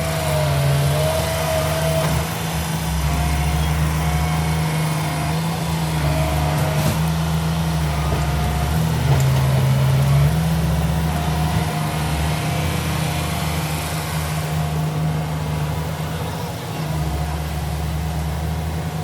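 Heavy diesel earthmoving machine's engine running steadily under load. Its low note shifts slightly in pitch now and then, and a thin wavering whine comes and goes above it.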